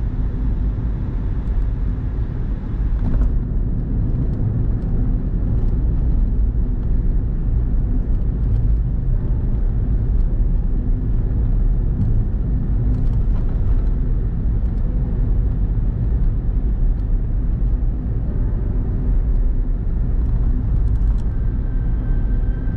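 Steady low rumble of a car driving at road speed, road and engine noise heard from inside the cabin.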